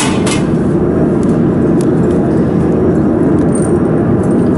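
Steady machinery noise in a laser-welding workshop, with a few short clicks at the very start.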